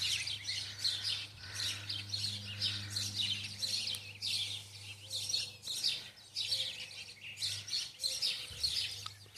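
Small songbirds chirping continuously, in quick clusters of high chirps several times a second, over a low steady hum.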